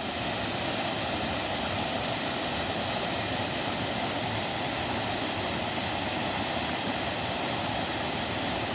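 Waterfall rushing: a steady, even roar of falling water with no change.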